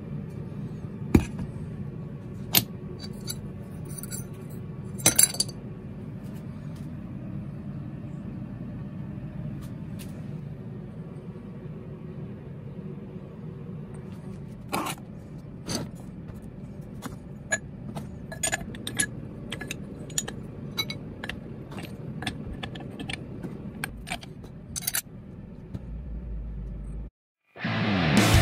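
Sharp metallic clinks and knocks of aluminium ingots and scrap being handled and loaded into a crucible, over a steady low hum. The clinks are scattered at first and come more often from about halfway to near the end.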